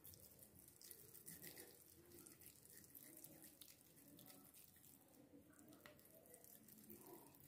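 Faint wet squishing and small sticky clicks of oiled hands pressing and shaping a soft mashed chicken-and-potato mixture in a bowl.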